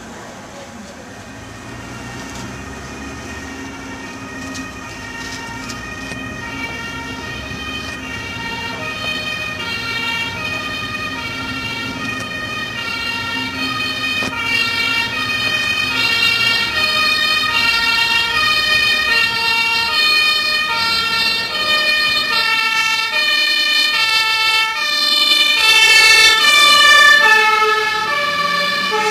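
Dutch fire service aerial ladder truck's two-tone siren alternating between a high and a low note, growing steadily louder as the truck approaches. It is loudest just before it passes, and then the pitch drops as it goes by.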